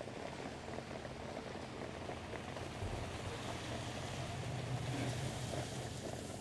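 Steady rushing track noise from a field of harness horses and their sulkies going by on the racetrack, growing a little louder past halfway as the horses come close.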